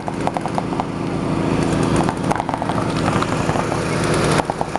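Paintball markers firing quick strings of shots, rapid sharp pops in clusters, over a loud steady motor-like hum.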